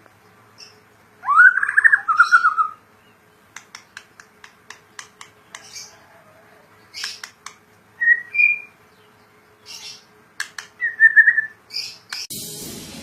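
White-rumped shama singing: short whistled phrases, one swooping up and then falling away, broken by quick runs of sharp clicking notes. Music comes in near the end.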